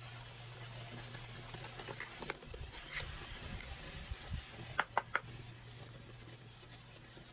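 Faint handling noises, scratching and rubbing, with a few sharp clicks about five seconds in, over a steady low hum.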